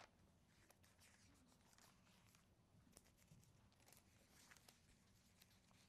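Near silence with faint paper rustling and a few light clicks: Bible pages being leafed through to find Luke chapter 17.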